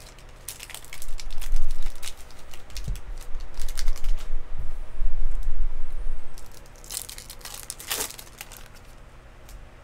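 Foil wrapper of a baseball card pack being torn open and crinkled by hand, in quick crackly clicks, with dull low bumps of handling and two louder crinkles near the end.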